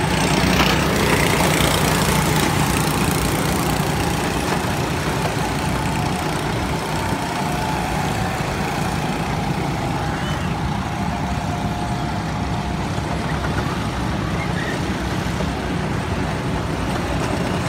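Go-kart engines running as several karts lap the track: a steady engine drone, with faint engine notes coming and going as karts pass.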